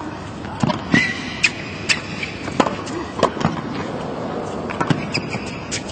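Tennis rally on a hard court: a string of sharp racket hits on the ball and ball bounces, about one every half second to second, over a low background of crowd noise.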